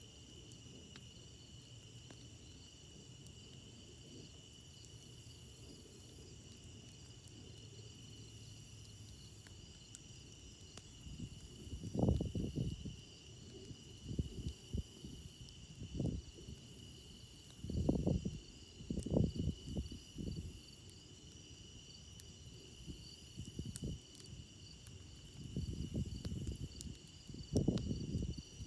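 Crickets trilling steadily in a high, unbroken chorus, with a few faint fire crackles. From about twelve seconds in, a string of low, rushing bursts comes and goes several times and is the loudest thing heard.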